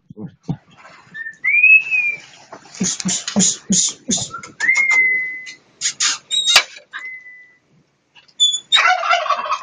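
Dog whining in high, drawn-out whines amid short scuffling and rustling noises, with a harsher yelp near the end: the dog excited while going after an iguana.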